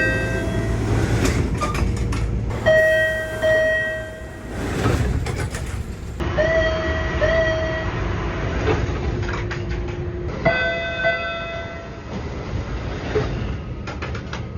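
MBTA Orange Line subway car door chimes heard from inside the cars, several recordings cut one after another. Each is a short electronic chime of two quick notes, over the steady rumble of the train car.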